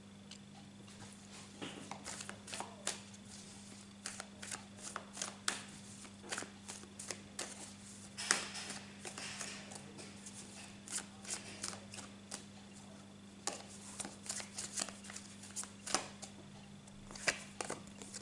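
A deck of tarot cards being shuffled by hand: many short, irregular card rustles and taps, over a faint steady low hum.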